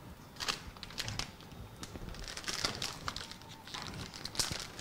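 Scattered light clicks, taps and rustles of kitchen utensils and containers being handled.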